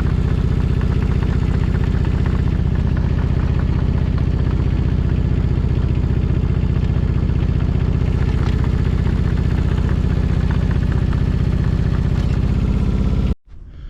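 Engine of a machine being driven, running steadily at an even speed with a fast, regular pulse, until it cuts off abruptly near the end.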